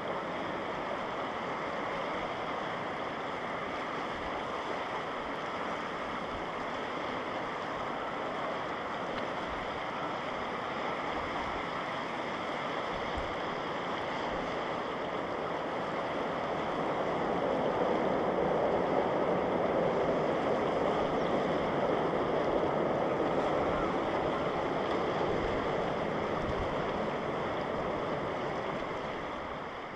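Distant jet engine noise from across the water, a steady even rush that swells past the halfway point and eases near the end, mixed with water lapping at the shore.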